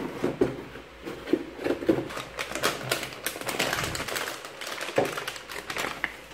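Cardboard packaging handled with a few soft knocks, then a metallized anti-static bag crinkling and crackling as a graphics card is pulled out of it.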